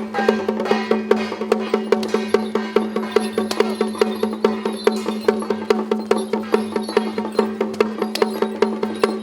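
Procession music over a steady held drone, with a fast, even woodblock-like beat of about five strokes a second.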